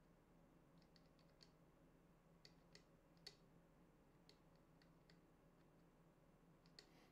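Near silence with about a dozen faint, small clicks from handling an LED tube light. They come in scattered ones and twos, with a small cluster about a second in and the loudest a little over three seconds in.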